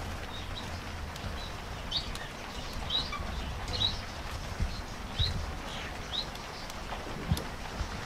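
A canary giving short, high chirps, roughly one a second, each sweeping quickly downward in pitch.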